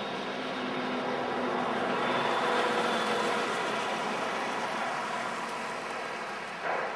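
Distant engine running, growing louder about two to three seconds in and then easing off, with a short louder sound just before the end.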